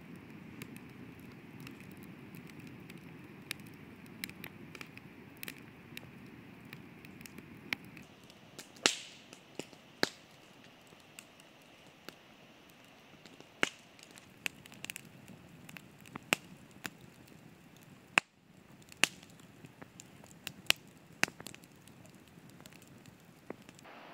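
Campfire crackling, with sharp irregular pops that grow louder and more frequent about a third of the way in.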